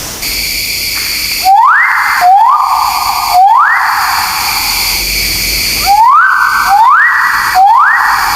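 A bird of paradise giving six loud, harsh calls, each sweeping up in pitch and then held briefly, in two groups of three, over a steady high hiss.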